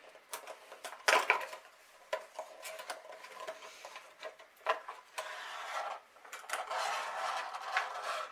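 HeroClix booster pack being opened by hand: scattered clicks and taps, a sharp tear about a second in, then a few seconds of plastic wrapping crinkling.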